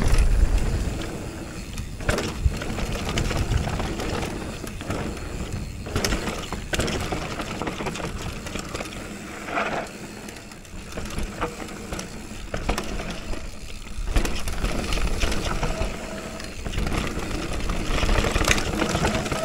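Downhill mountain bike rolling down a dirt trail: steady tyre noise with frequent knocks and rattles over bumps, under a low rumble of wind.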